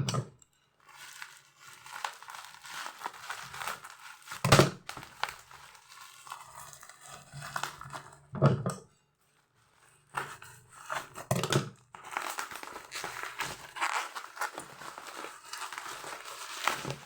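Toy packaging being crinkled and torn off by hand while a figure is unwrapped, with a few sharp knocks along the way and a brief pause near the middle.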